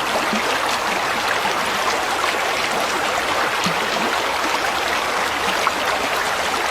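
Water flowing steadily, a constant rushing with small scattered bubbling blips.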